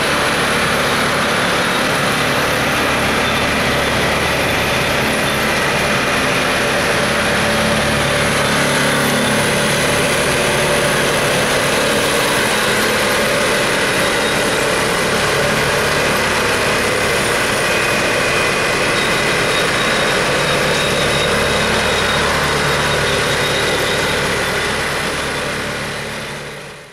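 Diesel engines of yellow rail track-maintenance machines running steadily as they move along the track, a loud, even engine sound that fades out near the end.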